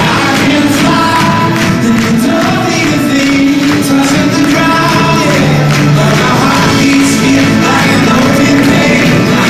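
Live band playing at concert volume, heard from within the hall: a male voice singing over acoustic guitar, keyboard and drums.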